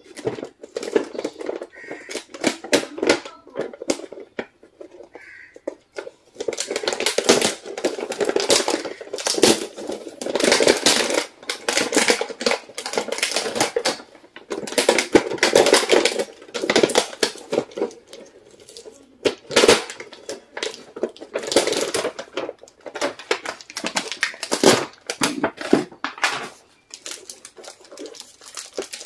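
Clear plastic packaging and cellophane candy wrappers crinkling and crackling as they are handled, in bursts with short pauses.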